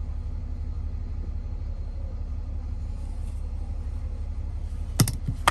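A steady low rumble, with two sharp knocks about half a second apart near the end.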